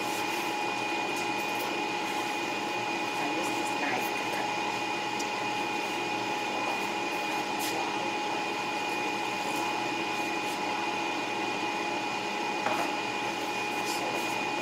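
Steady whirring hum of a household appliance or fan, with a constant high whine over it and a few faint clicks.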